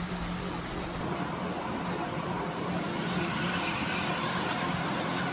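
An ambulance van driving through fast-flowing muddy floodwater: the water rushes and churns against the vehicle while its engine runs. The rushing grows a little louder and brighter about three seconds in, as the van throws up spray.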